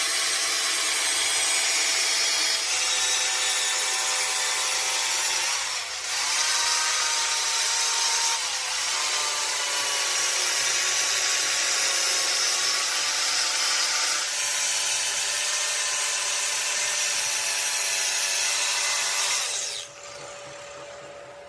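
A power tool running steadily under load on metal, a dense high-pitched grinding noise over a steady motor tone that dips briefly twice. It stops abruptly near the end.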